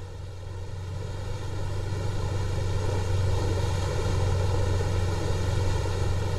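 Outboard engine of a bay boat running at speed, a steady drone that swells and then fades as the boat passes.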